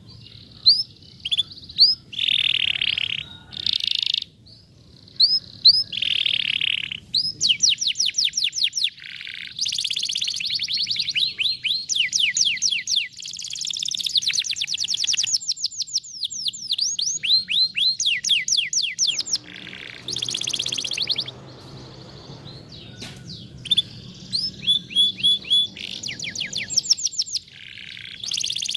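Domestic canary singing: fast trills of repeated down-slurred whistled notes broken by short buzzy phrases, over a faint low background rumble.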